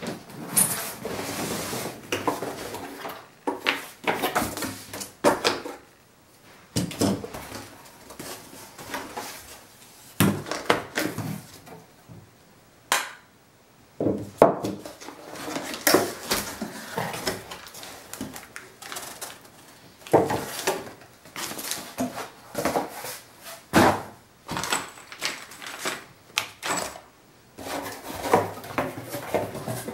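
A cardboard box opened and unpacked by hand: cardboard and packing rustling and scraping, with the metal parts of a Glidecam HD-2000 camera stabilizer knocking and clinking as they are set down one by one.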